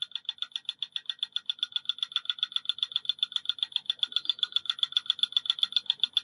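Magnetic stirrer running under the beaker, its stir bar ticking rapidly and evenly at about ten ticks a second.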